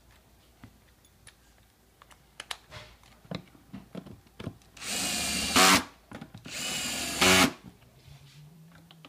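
Power screwdriver running in two short bursts of under a second each, driving screws into a plastic motor cover, with a louder peak at the end of each burst just before it stops. Light clicks and knocks of handling the parts come before the bursts.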